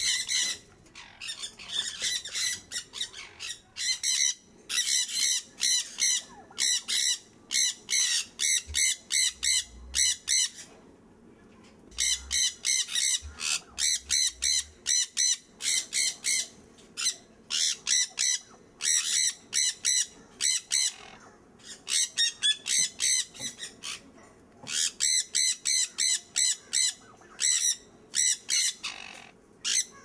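Conures screeching: high, harsh shrieks given in rapid runs of several a second, in repeated bursts separated by short pauses.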